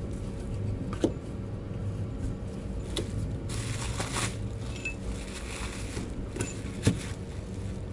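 Metal clinks and scraping from hands working parts out of a Lada Priora's 16-valve cylinder head while the valves are being removed: sharp clicks about a second in, around three seconds and near the end, with a stretch of scraping in the middle, over a low steady hum.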